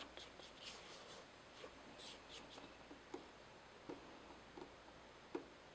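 Faint scraping of a rubber spatula and fingers cleaning creamed butter mixture off a stand mixer's paddle attachment, with a few soft knocks in the second half.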